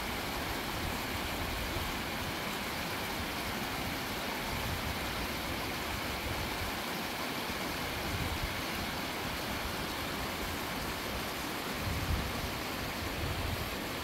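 Glacial meltwater stream running over rocks in a steady, even rush, with low rumbles of wind on the microphone now and then, the strongest about twelve seconds in.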